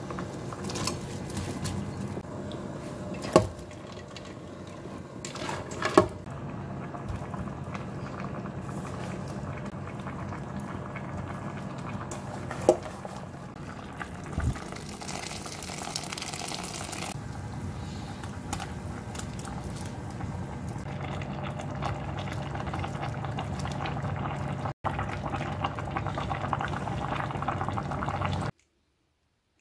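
Soup boiling in a stainless steel pot, a steady bubbling, with a few sharp clinks and knocks against the pot as ingredients are tipped in and stirred. It cuts off abruptly near the end.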